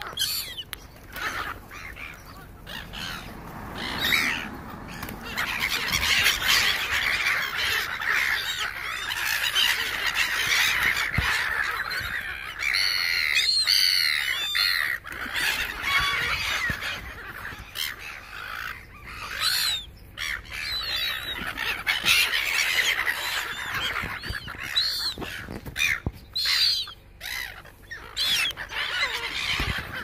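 A flock of gulls calling, with many harsh squawks overlapping into a steady clamour. The calling builds a few seconds in and eases off near the end.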